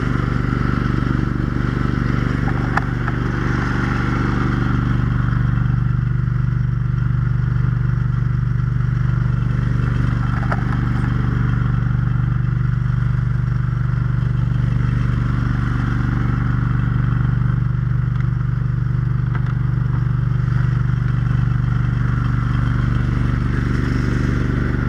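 Brush truck's fire pump and its engine running steadily while pumping, a loud, unchanging drone. A few faint clicks and clatters come over it.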